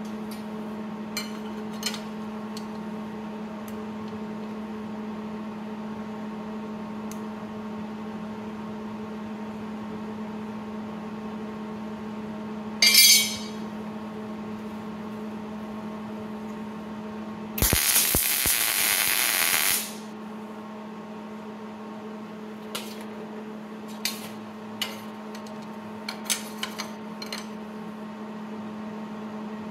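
Welder tacking a brake caliper bracket onto the steel tube of a Ford 9-inch axle housing: one loud, even burst of arc noise about two seconds long past the middle, after a brief sharp burst near the middle. A steady hum runs under it, and a few light metallic clicks come near the end.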